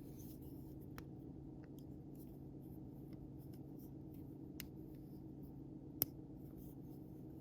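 A few faint, sharp clicks from a Leatherman OHT multitool being handled as its large flathead screwdriver is shown, over a steady low hum. The clicks come about a second in, past the middle, and loudest about six seconds in.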